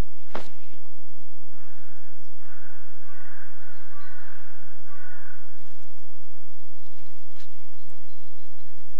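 Crows cawing several times in a row. A sharp click comes just before, and a steady low hum runs underneath.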